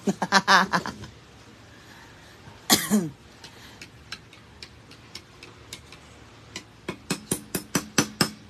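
Metal utensil clicking and tapping against a ceramic plate while dried fish is picked apart, sparse at first, then quicker and louder near the end. About three seconds in, a person gives a short cough.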